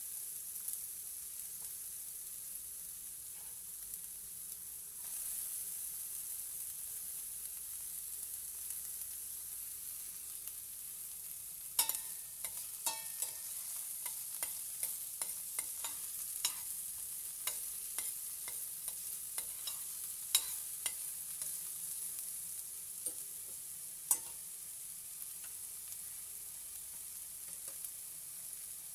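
Chopped red onion sizzling in a little oil in a stainless steel pan, a steady high hiss. Partway through, irregular sharp clicks and taps of a utensil against the pan begin as the onion is stirred.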